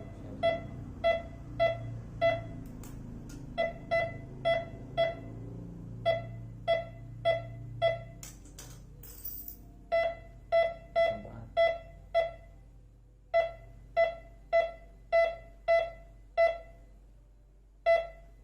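MD4030 metal detector beeping: short, mid-pitched electronic beeps about two a second, coming in runs with short pauses between them. It is signalling metal near its search coil, picked up at about 15 to 20 cm.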